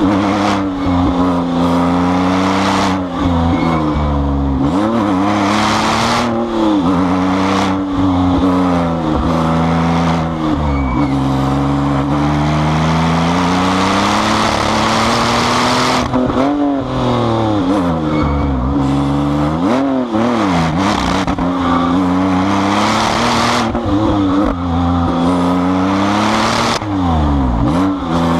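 Tuned 700 hp twin-turbo Porsche 911 GT2's flat-six engine driven hard, revs climbing and then dropping sharply about half a dozen times on lifts and gear changes, with tyres squealing at times.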